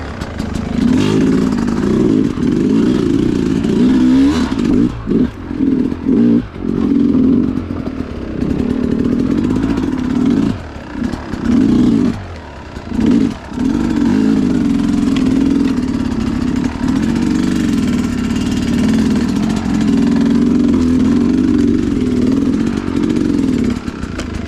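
Sherco two-stroke enduro dirt bike engine, fitted with a Smart Carb carburettor, being ridden off-road. The throttle is opened and snapped shut several times in the first half, with the engine note dropping out briefly each time, then held steady through the second half.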